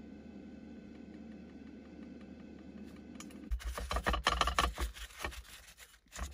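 Scratchy rubbing and scraping as oil is wiped around the cups of an electric takoyaki plate by hand. It starts about three and a half seconds in after a faint steady low hum, and breaks off briefly near the end.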